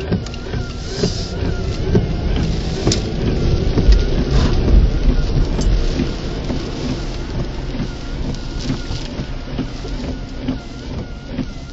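Heavy rain pelting a car as it drives, heard from inside the car, with a deep rumble that swells around the middle.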